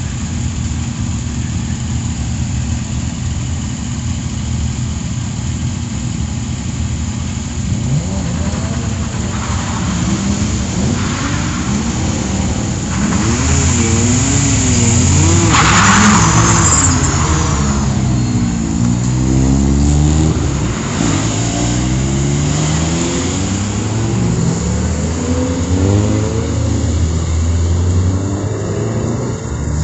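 Racing car engine running steadily, then from about eight seconds in repeatedly revving up and dropping back in pitch through gear changes. A short rushing noise comes about halfway through.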